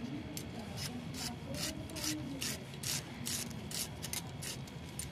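Onions being finely chopped with a blade, a crisp cutting stroke repeating at a steady pace of about two to three a second.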